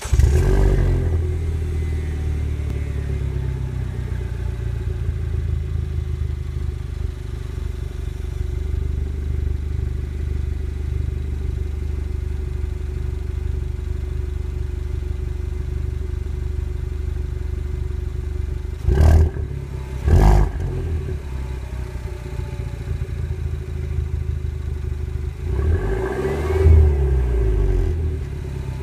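Citroen DS3 Racing's 1.6-litre turbocharged four-cylinder engine on its stock exhaust, catching and settling from a start-up flare into a steady idle. Two quick throttle blips come close together about two-thirds of the way in, then a longer rev that rises and falls near the end.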